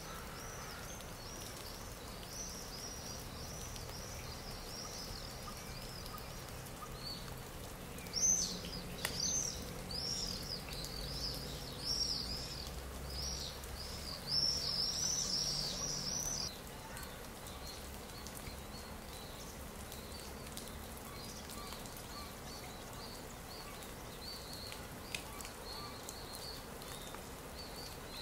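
Songbirds chirping in quick repeated phrases from a looped stock nature recording, over steady outdoor background noise. The birdsong is loud and busy until a little past halfway, then goes on fainter.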